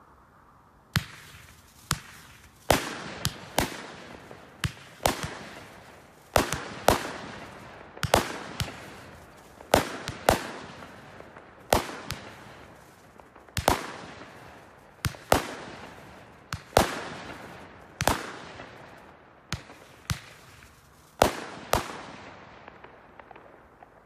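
Fireworks exploding: a rapid, irregular string of some thirty sharp bangs, each trailing off in echo. They start about a second in and stop shortly before the end.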